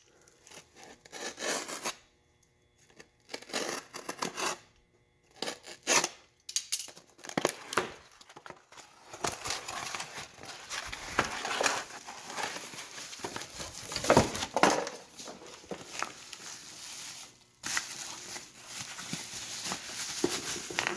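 Cardboard box being opened by hand: packing tape slit and torn with a box cutter, cardboard flaps pulled and scraped. Later comes denser rustling, with bubble wrap and plastic crinkling near the end as the exhaust part is unwrapped.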